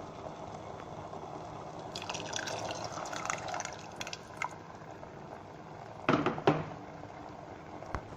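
Ground roasted-coconut paste being poured from a mixer jar into a pot of sambar, a wet, pouring sound that is busiest in the middle. About six seconds in come a couple of sharp knocks.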